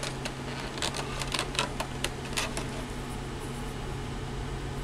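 Light clicks and taps of small hard-plastic model-kit parts being handled and fitted together, mostly in the first two and a half seconds, over a steady low hum.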